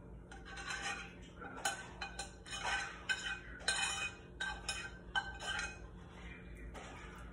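A utensil scraping and clinking against the inside of a frying pan in quick irregular strokes, spooning chicken pot pie filling out into a baking dish; the strokes trail off near the end.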